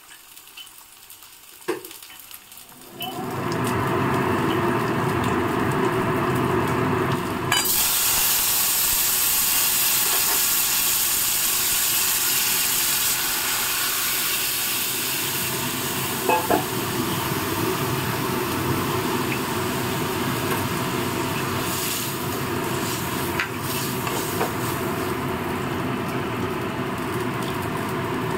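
A tempering of dried red chillies and cumin seeds sizzles softly in hot oil in a kadai. About three seconds in, lentil dal with drumstick pieces is poured into the hot oil, and the pan breaks into a loud, steady sizzle that carries on, with a couple of short knocks near the middle.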